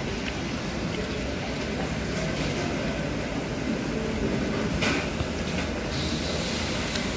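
Steady, indistinct background din of a large covered market hall, a low, even rumble with a few faint clicks and a brief rustle about five seconds in.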